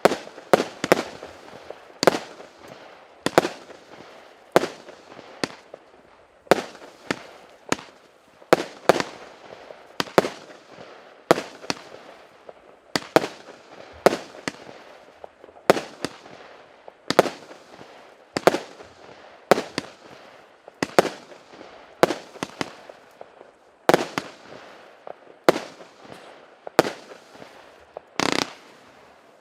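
A 258-shot, 0.8-inch firework cake firing shot after shot. A sharp bang comes roughly once a second, each with a short ringing tail and fainter pops between. A longer, louder burst comes near the end.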